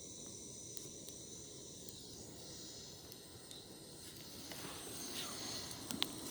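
Faint steady hiss with a few small, sharp crackles, from a wood fire burning outdoors.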